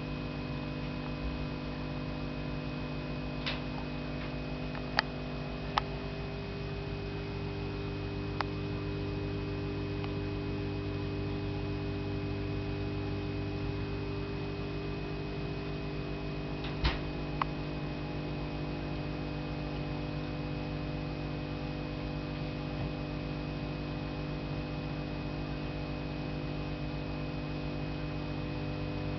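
Steady electrical hum made of several layered tones, broken by a handful of sharp clicks, the loudest about five and seventeen seconds in.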